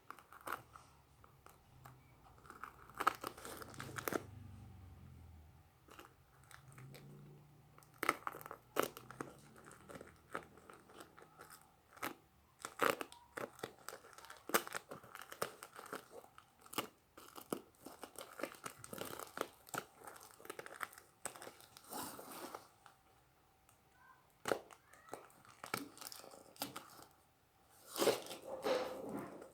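Parcel packaging being torn open and crinkled by hand: irregular crackles, rips and rustles, with a louder stretch of rustling near the end.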